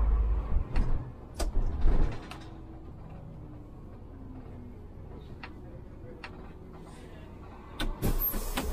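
Inside an Iveco Urbanway 12 diesel city bus: a low rumble with rattles and clicks for the first two seconds, then the engine's steady quieter hum for several seconds, as at a standstill. A sudden loud hiss comes near the end.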